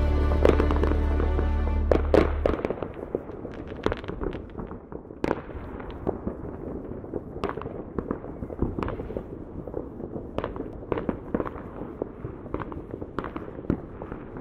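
Music ends about two seconds in. After that, aerial fireworks burst in an irregular series of sharp bangs and crackles, roughly one a second, each with a short echo.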